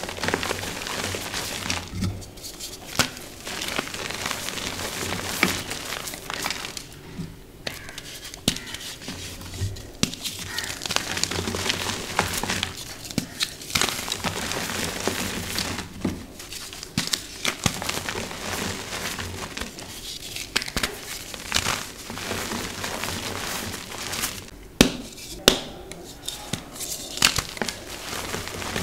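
Hands crushing and crumbling dyed gym chalk: dry, crunchy crackling of chunks breaking apart and soft, dusty squeezing of powder, in bouts with short pauses and the odd sharp crack.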